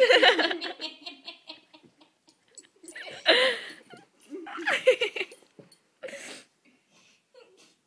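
Human laughter in about four bursts, the first and loudest at the start, then more a few seconds apart.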